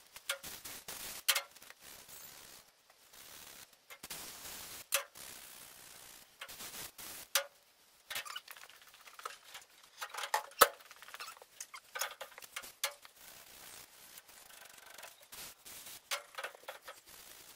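Hand work on the rear brake drum and hub of a 1950 International Harvester L-120 as it is being cleaned: irregular scrapes, clicks and metal taps. The loudest is a single sharp metal click about ten and a half seconds in.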